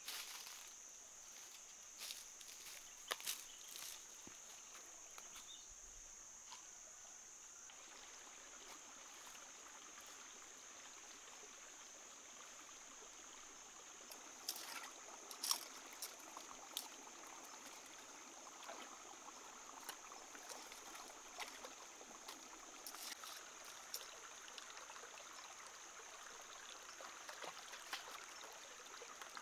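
Shallow rocky stream trickling, with a steady high-pitched insect drone over it and a few sharp steps and splashes now and then.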